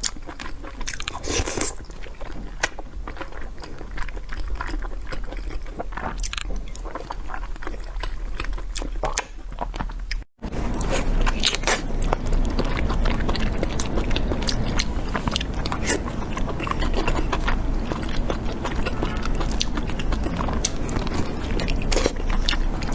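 Close-miked eating: biting and chewing of soft, fatty pork, with many wet clicks and smacks. The sound cuts out for an instant about ten seconds in, then carries on denser and louder.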